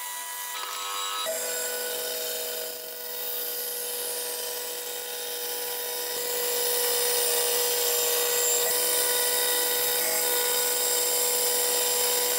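Bandsaw running and cutting through a board of ash, a steady machine hum with the hiss of the blade in the wood. The sound changes about a second in and grows a little louder from about six seconds in.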